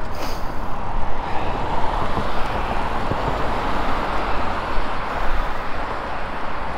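Steady wind rumble on a GoPro camera's microphone on a moving road bicycle, mixed with tyre noise and road traffic.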